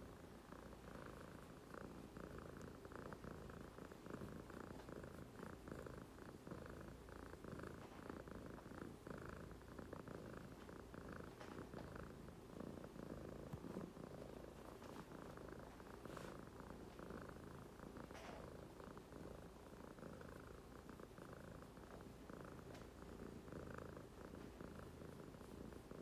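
Siamese cat purring steadily while his head and chin are rubbed.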